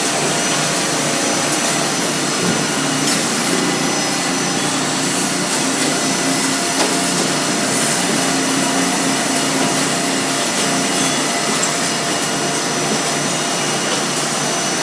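Steady machinery noise from an automated robot production line: a constant hiss with a few faint steady whining tones.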